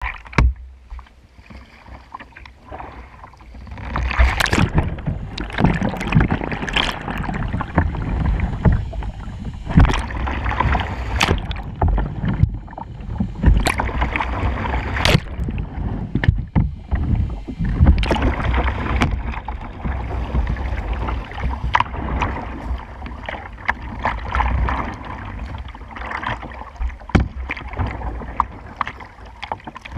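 Close, loud water splashing and sloshing around a whitewater kayak as it capsizes and rolls back upright, with many sharp slaps and splashes of the paddle blade in the water. Quieter for the first few seconds.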